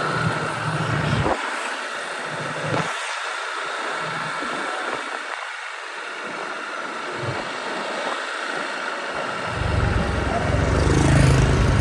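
Road traffic going by. A bit under ten seconds in, a heavy vehicle's engine rumble comes up close and becomes the loudest sound.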